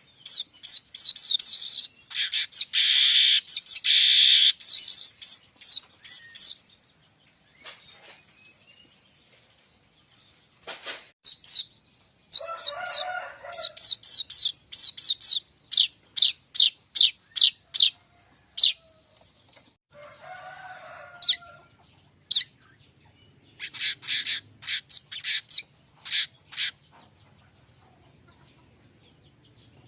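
Manyar kembang weaver singing: bursts of rapid, short, high ticking notes, several trains separated by pauses, with a lower, harsher note twice.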